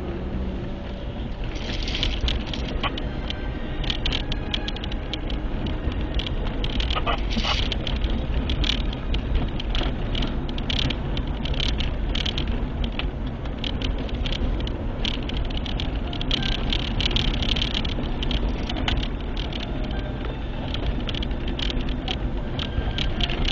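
A car's road and engine noise heard from inside the cabin while driving: a steady low rumble, with frequent short clicks and crackles throughout.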